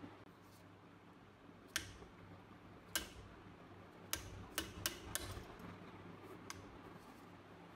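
Sharp metallic clicks and taps of a screwdriver working on a rusty steel Beretta Model 1934 pistol frame, about seven single clicks with a quick cluster of four in the middle.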